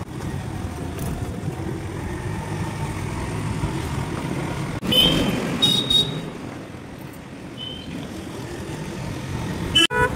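Road and wind noise from a moving motor scooter in traffic, with vehicle horns tooting briefly a few times, mostly around the middle and once near the end.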